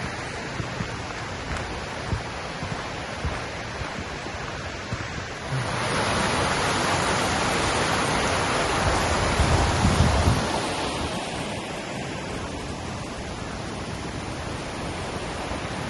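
Creek water rushing over small cascades, a steady hiss that grows louder about five and a half seconds in and eases back after about eleven seconds.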